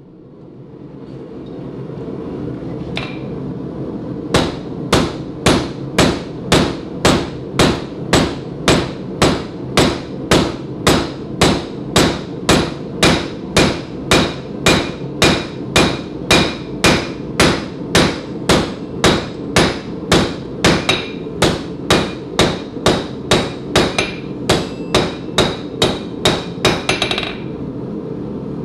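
Steady hand-hammer blows on red-hot stainless steel bar stock on an anvil, about two ringing strikes a second, over a steady low rushing noise. The blows pause briefly near the end, then one more lands.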